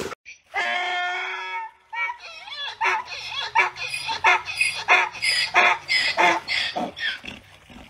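A dog howling, one long held note. Then a donkey braying, a long rhythmic run of harsh hee-haw calls that grows louder and fades out near the end.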